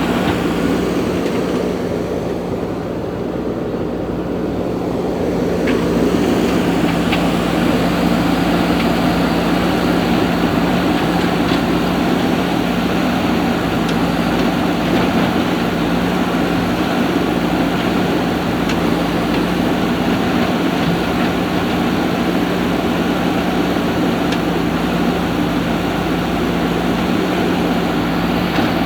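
Diesel engine of a JCB 3DX backhoe loader running steadily under load with a constant hum, easing off briefly and picking up again about five seconds in.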